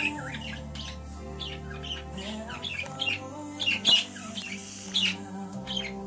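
Budgerigar chirping and chattering in many short, sharp calls, the loudest a little before the fourth second, over background music with long held notes.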